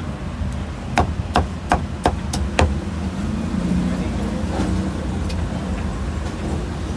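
Cleaver chopping roast meat on a thick wooden chopping block: six quick chops, about three a second, starting about a second in, over a steady low background rumble.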